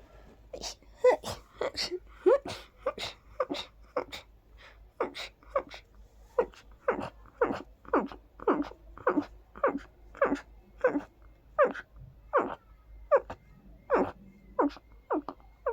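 A person sneezing rapidly over and over into cupped hands, about two short sneezes a second, each a quick burst that drops in pitch. It is a sneezing fit set off by perfume tickling the nose.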